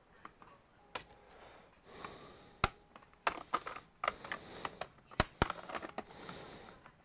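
Irregular sharp clicks and taps of a laptop's plastic parts and hand tools being handled during disassembly, a few at first and then coming thick and fast through the second half.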